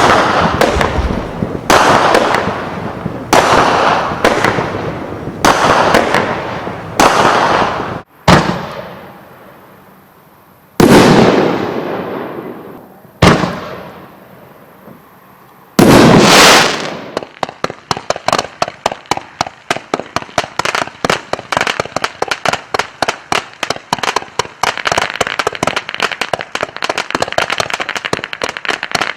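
Fireworks going off: a series of loud bangs about once a second, then a few bigger single bangs each with a long fading tail, then a rapid, dense run of crackling pops for the last third, like a firecracker string.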